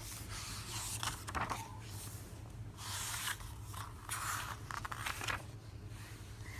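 Pages of a paperback picture book being turned by hand: a handful of papery rustles and swishes as the cover and endpapers are flipped open.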